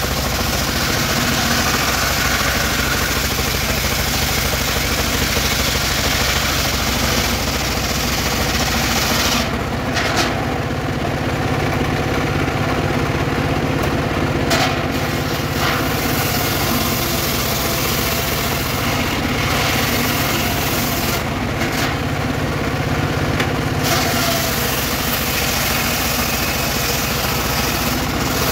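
Engine-driven circular saw of a portable sawmill ripping a log of weru wood lengthwise, the engine running steadily under load. The hiss of the cut drops away about ten seconds in and again later, where the blade runs between cuts, with a few sharp clicks.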